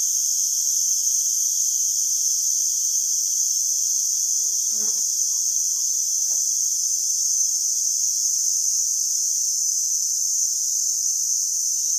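Steady chorus of forest insects, a continuous high-pitched shrill that does not change.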